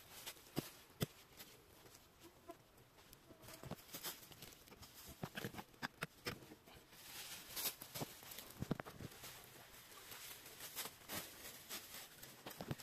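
Scattered clicks, knocks and rustles of hands rummaging through dry leaf litter and a small box.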